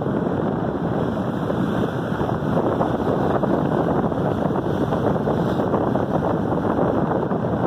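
Steady wind rushing over the microphone on the deck of a ship under way at sea.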